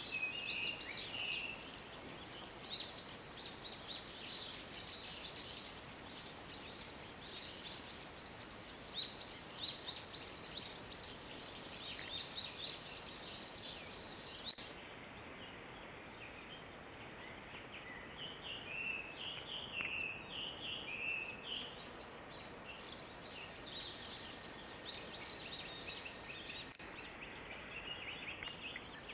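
A dense chorus of many wild birds calling at once: quick, overlapping chirps and whistled phrases, with a steady high-pitched hum underneath.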